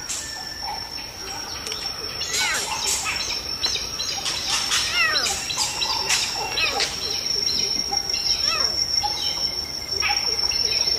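Lost lion cub calling over and over in short, high cries for its mother, a sign of its distress, over a steady high-pitched insect drone.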